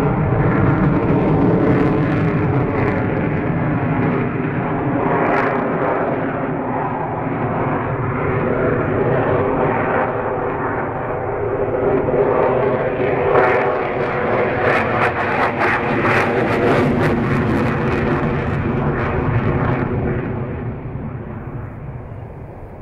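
Jet engines of a twin-engine Sukhoi Flanker fighter during display manoeuvres: a loud, steady rumble with held whining tones, a stretch of crackle about two-thirds of the way through, then fading away near the end.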